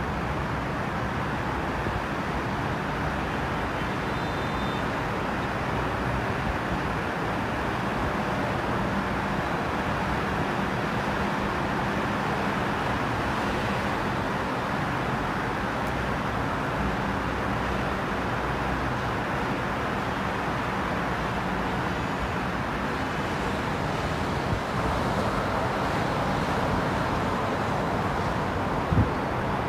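Steady rumble of distant city traffic, with a brief knock near the end.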